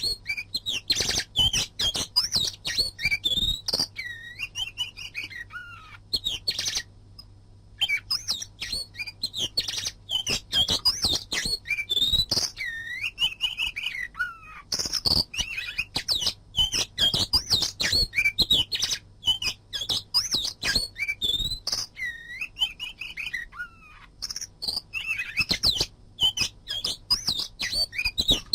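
Oriental magpie-robin (kacer) singing a rapid, varied song of sweeping whistles and sharp chips, with a brief pause about seven seconds in.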